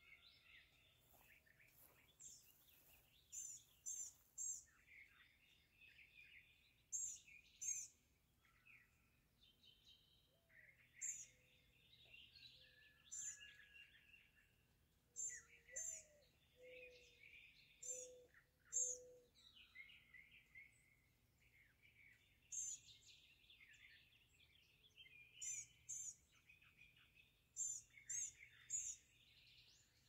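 Dawn chorus of several songbirds. Quick, very high calls in twos and threes repeat often and are the loudest sounds, over busier warbling songs. A low series of four cooing notes comes in the middle.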